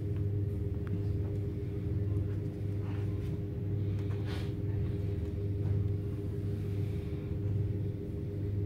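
A steady low hum, with a few faint knocks and shuffles over it.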